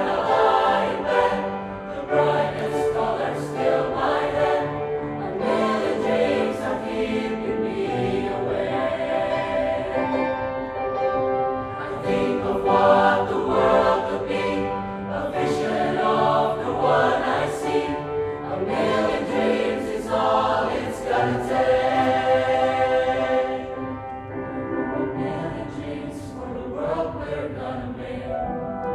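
High school choir singing in several parts, with sustained chords. The singing grows softer about three-quarters of the way through.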